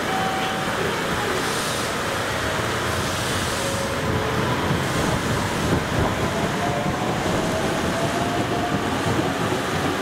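JR Kyushu 815 series electric train pulling out, heard through the steady noise of storm wind and rain, with a faint motor whine rising in pitch as it picks up speed in the second half.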